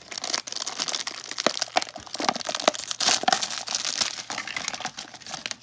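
Plastic toy packaging crinkling and crackling in the hands as a doll's blind package is handled and opened, with many sharp irregular crackles that die away near the end.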